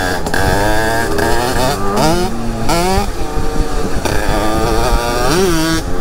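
Two-stroke dirt bike engines running. The nearer engine revs up in quick rising sweeps about two and three seconds in and again near the end, the revs dropping back in between.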